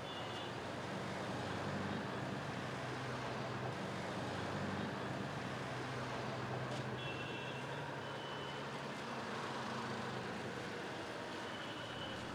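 Street traffic noise with a heavy vehicle's engine running low and steady, and a few short high beeps.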